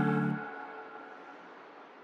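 Background music: a held organ-like chord that cuts off about half a second in, leaving a reverb tail that fades away.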